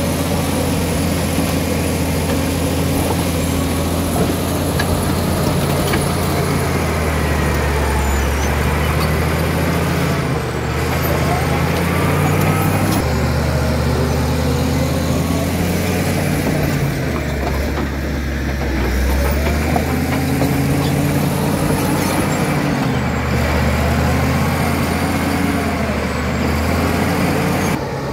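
Caterpillar D7G crawler bulldozer's six-cylinder diesel engine working under load, its pitch rising and falling again and again as the dozer pushes and backs up, with faint squeaky tones above the engine.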